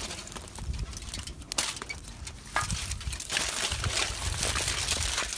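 Aluminium foil crinkling and rustling as it is spread out and handled by hand, with scattered sharp crackles; the crinkling gets denser from about halfway through.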